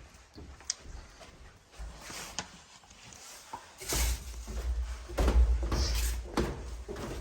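Footsteps in stocking feet going down basement stairs: a few faint clicks, then from about four seconds in, heavy thuds about every half second with a low rumble.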